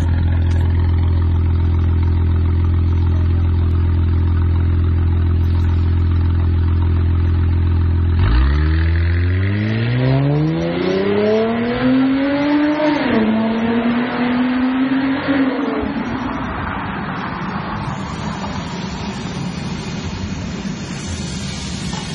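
Mercedes-Benz S320 with an aftermarket RES variable-valve exhaust idling with a steady deep drone, then pulling away. About eight seconds in the engine note climbs in pitch, drops briefly at a gear change near the middle, climbs again and fades as the car moves off into the distance.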